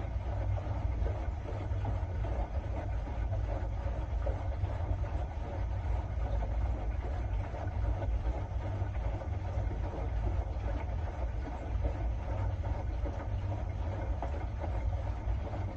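Steady low mechanical rumble that keeps on evenly without pauses or strikes.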